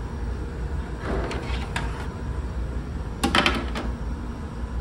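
Plastic serving tray handled: a rustle with a few clicks about a second in, then a sharp clatter a little past three seconds in as it is picked up. Under it the ferry's engines keep up a steady low rumble.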